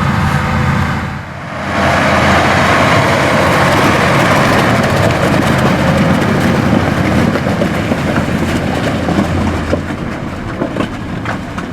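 Large harvest machinery at work: a heavy diesel engine drone with a broad mechanical rush, dipping briefly about a second in and then running on steadily, with a few sharp ticks near the end.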